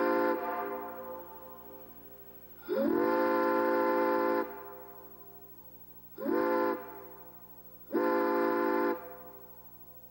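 Home-built five-chime whistle sounding a chord in separate blasts. One blast cuts off just after the start, then come a blast of nearly two seconds, a short toot and a blast of about a second. Each blast swoops up to pitch as it starts and leaves a long echo dying away after it.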